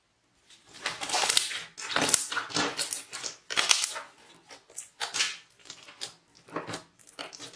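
Hands squeezing and kneading a clear slime packed with beads: irregular wet squishes and crackles that start about half a second in and come in quick uneven bursts.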